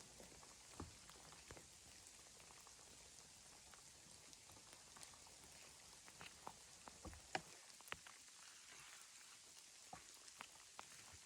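Near silence with scattered faint, irregular crackles and ticks, one a little louder about seven seconds in.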